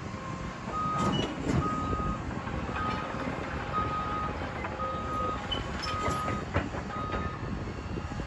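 A heavy machine's backup alarm beeping steadily, seven single-pitched beeps about a second apart, over a running diesel engine, with a few sharp clanks of metal or debris.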